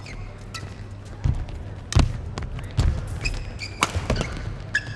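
A badminton rally: several sharp racket hits on the shuttlecock, with shoes squeaking briefly on the court and low thuds of feet landing.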